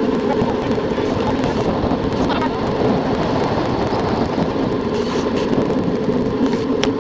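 Steady wind and road rumble picked up by a camera mounted on a road bike while riding, with one sharp click just before the end.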